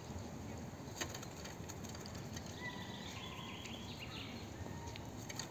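Quiet outdoor ambience: a low steady background hum with a few faint, distant bird chirps around the middle and a single sharp click about a second in.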